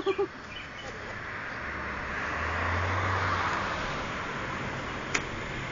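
A vehicle driving past: a steady rush of engine and road noise that swells to its loudest about three seconds in and then fades.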